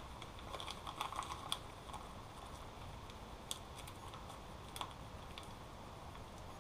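Light, scattered clicks and ticks of fingers working the tiny metal barrels out of insulated crimp splice connectors, with a cluster about a second in and a few single clicks later.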